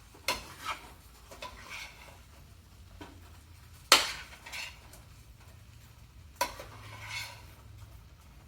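A cooking utensil scraping and knocking against a pan while clumps of leftover rice are broken up and stirred: a handful of separate clacks and scrapes, the sharpest about four seconds in.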